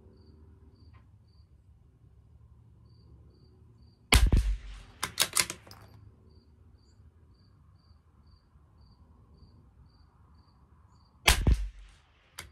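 .22 LR bolt-action rifle fired twice, a sharp crack about four seconds in and another near the end. After the first shot the bolt is worked in a quick run of metallic clicks. Crickets chirp steadily and faintly throughout.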